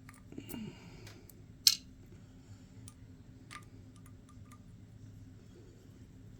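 Small metal clicks and taps of tiny screws and a hex driver as an RC crawler's portal housing is taken apart and the screws are dropped into a tray, with one sharp click about a second and a half in and a few lighter ticks after.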